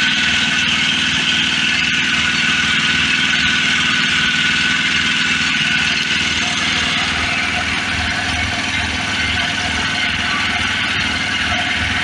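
Engine idling steadily, with an even low pulsing.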